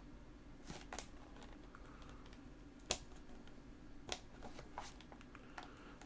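Fingers handling a plastic external hard drive enclosure, picking at its rubber feet to look for hidden screws: a handful of faint clicks and taps, the sharpest about three seconds in.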